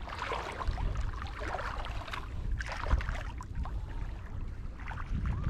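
Feet wading through shallow seawater, sloshing and splashing irregularly with each step, over a steady low rumble of wind on the microphone.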